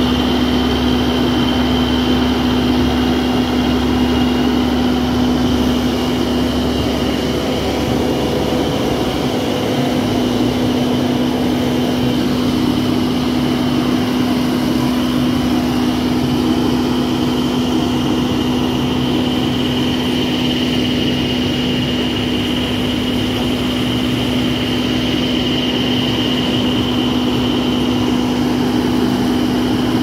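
Self-loading concrete mixer's diesel engine running steadily as the machine drives slowly through shallow water, with a steady low hum and a high whine.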